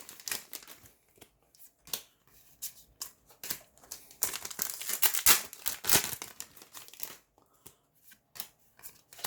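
Foil booster-pack wrappers crinkling and being torn open by hand, in irregular rustles and crackles with the loudest stretch a little past the middle.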